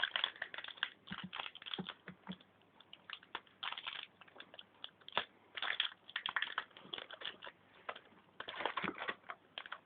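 Trading cards and booster-pack wrappers being handled and sorted: a string of irregular light clicks, taps and rustles.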